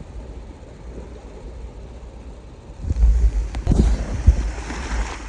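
Wind buffeting the microphone, a low rumble with hiss that gusts much stronger about three seconds in.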